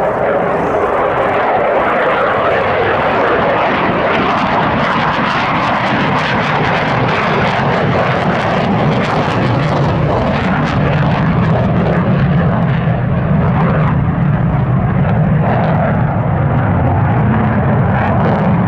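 Loud, continuous jet noise from an F-4EJ Kai Phantom II's twin J79 turbojets as it flies a display pass. The noise turns deeper about halfway through.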